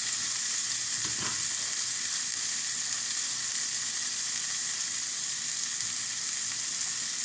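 Beef burger patties frying in a hot skillet, sizzling steadily.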